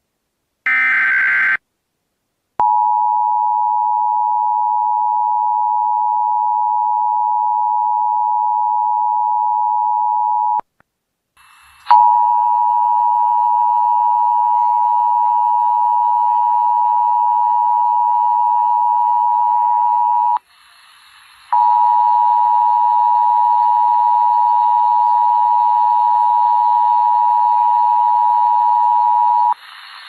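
Emergency Alert System tones. About a second in comes a last short burst of the SAME digital header screech. Then the EAS two-tone attention signal (853 Hz and 960 Hz sounded together) plays three times, about eight seconds each with short breaks between, the second and third with a hiss and a faint high whine behind them.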